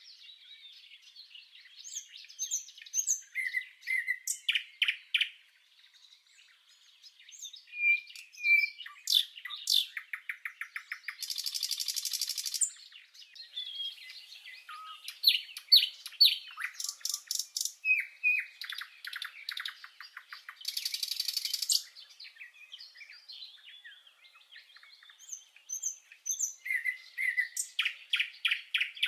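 Small birds chirping and twittering, with short whistled notes, quick rattling trills and a couple of longer buzzy trills, separated by brief quiet gaps.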